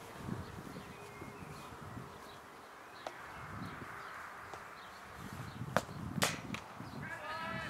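Cricket bat striking the ball: a sharp crack about six seconds in, just after a shorter click, over open-air ambience with chirping calls near the end.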